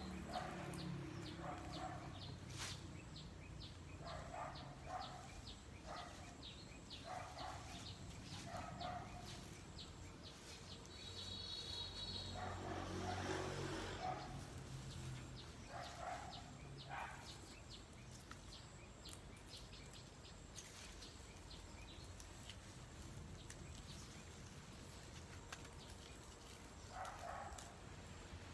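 Small birds chirping: a fast run of high chirps through the first half and a short clear call near the middle. Soft rustling comes again and again as leafy branches are handled and stripped by hand.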